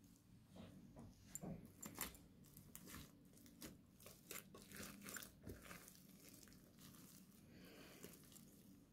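Slime being squeezed and stretched by hand: faint wet clicks, pops and crackles, thick for the first six seconds or so, then softer.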